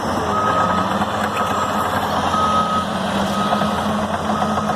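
Reversing alarm of a heavy earthmoving machine beeping steadily, about one beep a second, over the rumble of its engine running.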